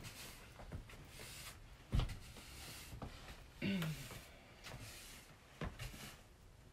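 Broom sweeping a stage floor: soft brushing with a few knocks, the loudest about two seconds in. A short murmured voice sound with falling pitch comes near the middle.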